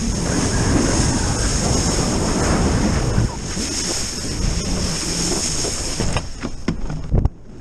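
Wind buffeting the action-camera microphone over water spraying and hissing off a wakeboard as it is towed across the lake. About six seconds in, the spray noise drops away and a few sharp knocks follow as the board rides up onto a ramp.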